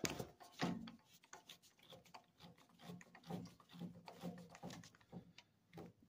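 Faint irregular clicking and rubbing as a Ryobi cordless drill's keyless chuck is twisted by hand to tighten it onto a shaft.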